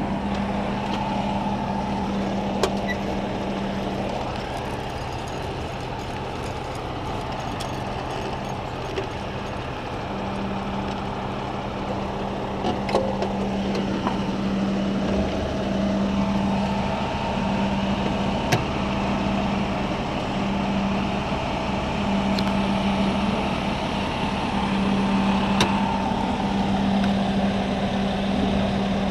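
Aerial ladder fire truck's engine and ladder hydraulics running with a steady hum, heard from the top of the extended ladder. About halfway through a deeper low rumble joins and the hum's pitch shifts as the ladder is worked, with a few light clicks.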